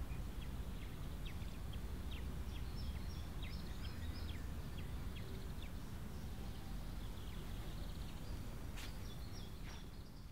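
Outdoor ambience: small birds chirping over and over above a steady low rumble, fading out at the end.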